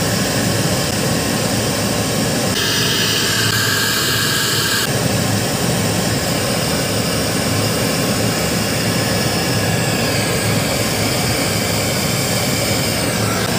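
Gas brazing torch flame running steadily with a loud, even roaring hiss while it heats a copper pipe joint for brazing. The character of the hiss changes briefly a few seconds in.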